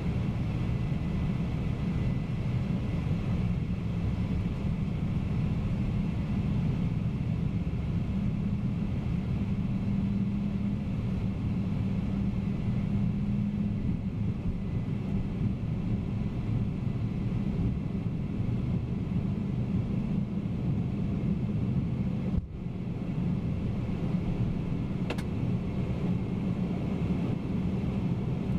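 Boeing 767-300ER's takeoff roll heard from inside the cockpit: a steady low rumble of the engines at takeoff power and the wheels on the runway, with faint steady tones above it. The rumble dips briefly about three-quarters of the way through, and a single click follows shortly after.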